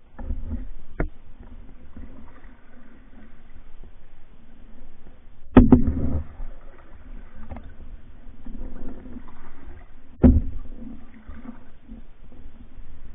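Pack canoe being paddled, with water swishing and rumbling against the hull and three sharp knocks: a small one about a second in, the loudest about five and a half seconds in, and another about ten seconds in.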